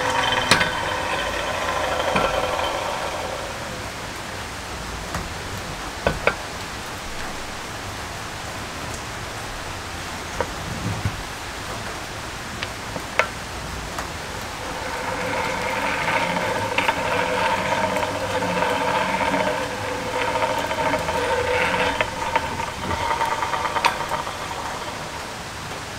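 Hand-cranked cast-iron forge blower (Bee-Tee Whirlwind) spinning: its geared fan gives a steady whine that fades over the first few seconds, then a quieter stretch with a few sharp clicks, and the whine picks up again about fifteen seconds in and runs until near the end.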